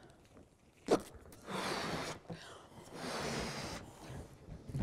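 Balloons being blown up by mouth: a quick intake of breath, then two long breaths blown hard into the balloons.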